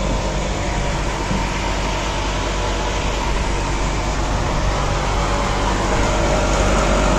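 Steady hum of an air conditioner's outdoor condenser unit running close by.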